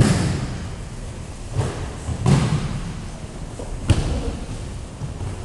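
Judo throws: bodies landing on the mats in a series of heavy thuds, one right at the start, two more around a second and a half and two seconds in, and a sharper slap about four seconds in.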